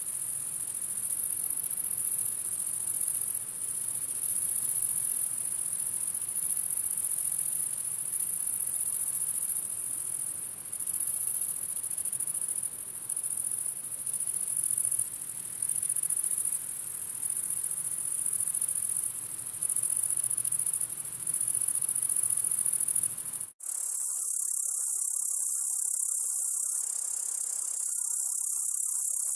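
Grasshoppers stridulating: a very high-pitched, insect buzz in trains of about a second each, starting and stopping over and over. About 23 seconds in it cuts abruptly to a steadier high buzz with faint, quick chirps lower in pitch.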